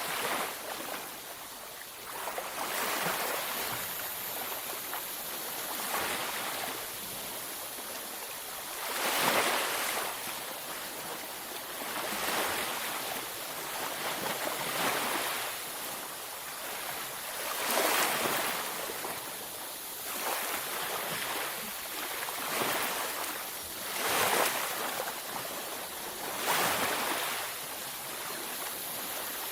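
Waves breaking and washing on a beach, a steady hiss of surf that swells every few seconds as each wave comes in.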